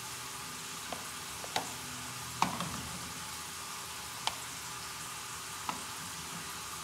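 Steady hiss of a lit gas burner under a steaming pot of water, with five short sharp clinks and knocks, the loudest about two and a half seconds in, as pieces of boiled corn on the cob are lifted from the pot and set into a plastic tub.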